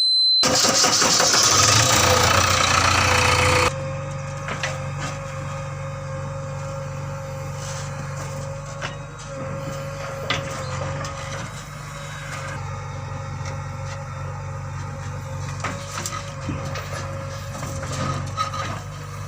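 A JCB 3DX backhoe loader's diesel engine running steadily, with occasional clanks and knocks from the machine at work. For about the first three seconds a louder rushing noise covers it, then drops away.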